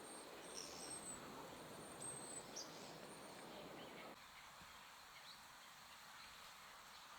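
Yellow-bellied tit giving thin, very high call notes, several short ones in quick succession during the first few seconds, over a faint steady hiss.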